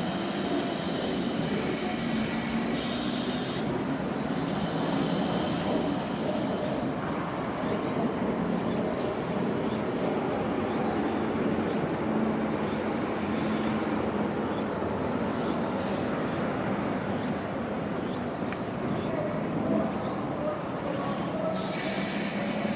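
JR 201 series green electric commuter train pulling slowly into the station, its running noise steady throughout.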